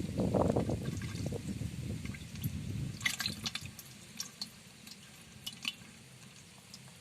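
Water splashing and dripping: a dense splashing for about the first two seconds, then a scatter of light drips and ticks.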